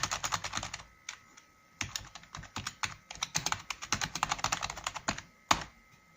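Fast typing on a SVEN 9100 membrane keyboard: a rapid run of key presses, a short pause about a second in, another long run, and a single louder keystroke near the end.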